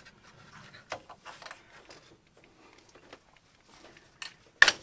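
A small hand tool scraping and clicking against the metal of an ATV's front spindle housing at the ball joint, with scattered light taps and a sharp metallic click near the end as the part works loose.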